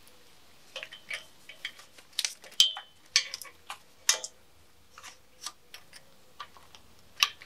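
Irregular clicks, knocks and rattles of a BMW M50B25 engine's wiring harness, connectors and intake manifold being handled and worked free. About two and a half seconds in comes one sharp clank that rings briefly.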